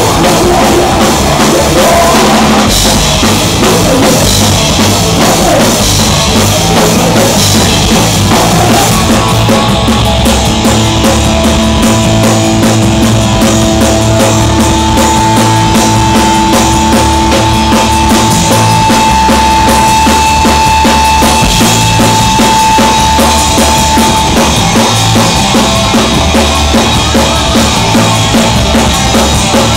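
Live rock band playing loud through electric guitars, bass and a drum kit, with long held guitar notes through the middle.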